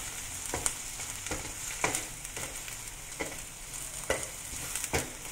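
Blended onion, garlic and bird's-eye chilli paste with sliced shallots sizzling in hot oil in a wok while a wooden spatula stirs it, scraping across the pan a little more than once a second. This is the sautéing of the spice base (tumis).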